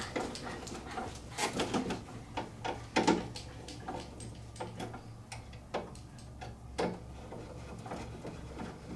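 Irregular small clicks, taps and knocks from hands handling parts and small hardware while assembling a model airplane, over a steady low hum.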